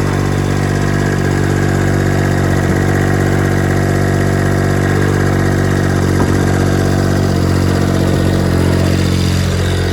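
Diesel engine running steadily at low speed, its pitch shifting slightly a few times.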